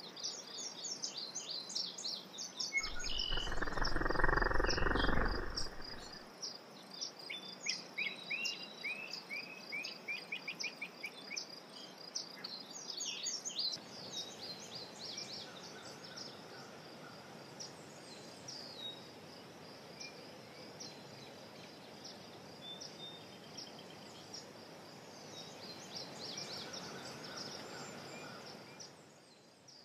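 Spring woodland ambience: many short bird chirps over a steady high-pitched insect-like trill. A low rumble, like wind on the microphone, comes in for a few seconds near the start, and the chirping thins out after about 14 seconds.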